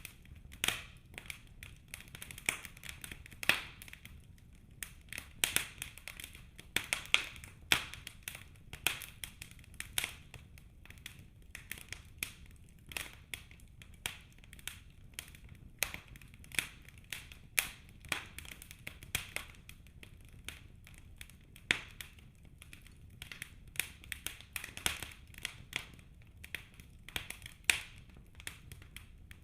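Wood fire burning in a fireplace: irregular crackles and pops, several a second, over a low steady rumble.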